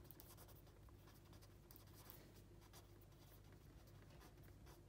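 Faint scratching of a fine-tip pen writing on paper in short, irregular strokes, over a low steady hum.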